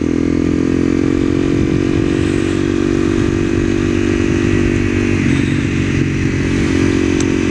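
Sport motorcycle's engine running at a steady cruising speed, with wind rush over it. The engine note shifts slightly a little after five seconds in.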